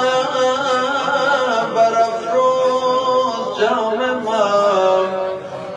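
A man singing solo, drawing out a long melismatic line of a Persian ghazal in held, wavering notes that glide up and down. His voice fades off near the end.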